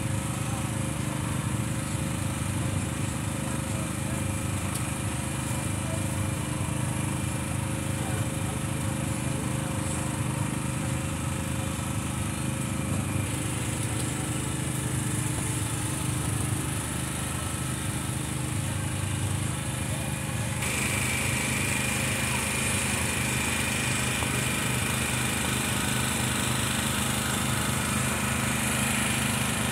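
A small motor running with a steady, even drone: a low hum that holds its pitch throughout. About two-thirds of the way through, the sound shifts and gains a higher hiss.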